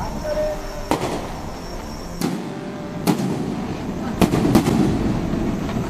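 Fireworks bursting: five sharp bangs a second or so apart, the last two close together, followed by a crackling rumble.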